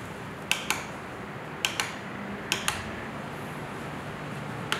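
Push buttons on a LIDO battery camping fan clicking as they are pressed and released, four double clicks about a second apart as the fan's speed and timer settings are stepped through. Under them the fan's motor runs with a low steady hum.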